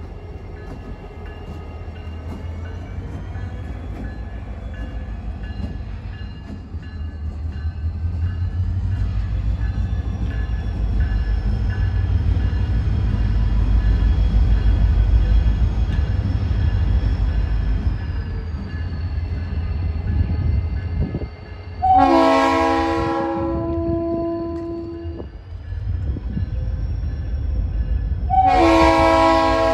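Norfolk Southern diesel locomotive running with a low engine rumble that builds as it approaches. Its air horn sounds a chord twice: a blast of about a second roughly two-thirds of the way through, and another starting near the end.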